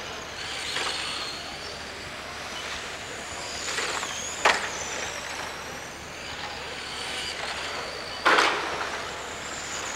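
Small radio-controlled race cars lapping a carpet oval, their motors whining high, the pitch rising and falling as they pass. Two sharp knocks stand out, one about four seconds in and a louder one near the end.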